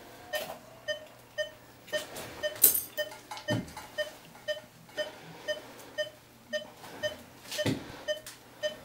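Surgical patient monitor beeping with the dog's pulse, short even beeps about two a second (a heart rate near 120 a minute), with a few knocks and clinks of surgical instruments.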